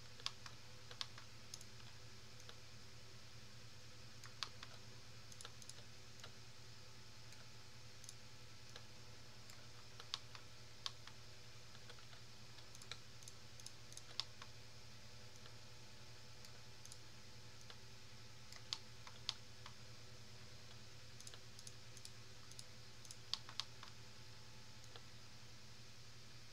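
Scattered sharp clicks of a computer mouse and keyboard keys, irregular and often a few seconds apart, sometimes in quick pairs, over a faint steady low hum.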